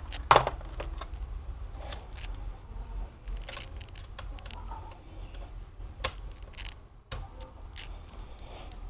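Scattered light clicks and taps of a laptop and screwdriver being handled on a work surface, with one sharper click about a third of a second in, over a steady low hum.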